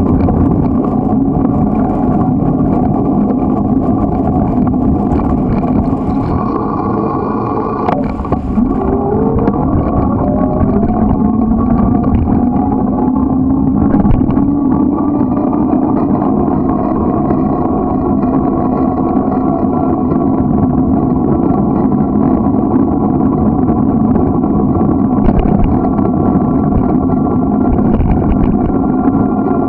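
A small engine drives the bike steadily, with road and wind rumble underneath. About eight seconds in, its pitch drops sharply and then climbs again over the next few seconds as it speeds back up.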